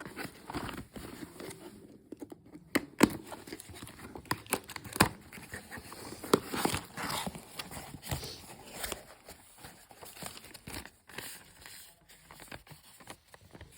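Smartwatch retail packaging being handled and unwrapped: crinkling of wrapping with scattered sharp clicks and taps as the box is opened.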